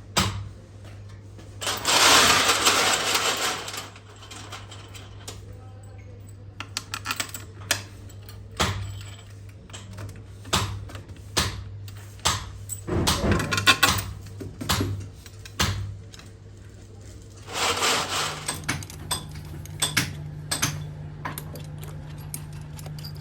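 Small metal parts of an automatic transmission valve body clicking and clinking as they are handled and tapped on a workbench, with two hissing bursts of about two seconds each, about two seconds in and near the end, over a steady low hum.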